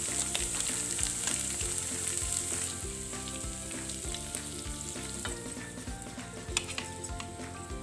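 Rice-and-potato cutlets shallow-frying in oil, a steady sizzle that grows quieter about three seconds in as the browned cutlets are lifted out of the pan, with scattered light clicks.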